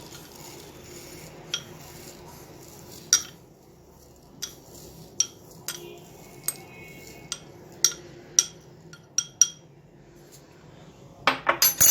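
Kitchen utensils and containers being handled: about a dozen light clinks and taps scattered through, over faint steady room noise.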